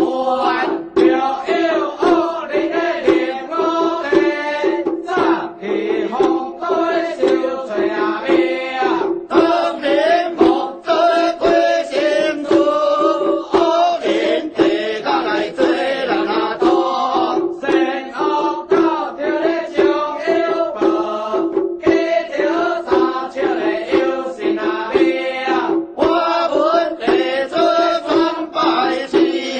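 Taoist ritual invocation chant in the xiao fagu (small dharma drum) style, sung continuously to a melody over a steady held drone note, calling on the prefectural and county City God to descend.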